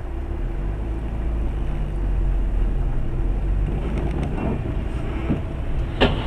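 Car driving, heard from inside the cabin: steady engine and road rumble with a constant hum, and a sharp knock near the end.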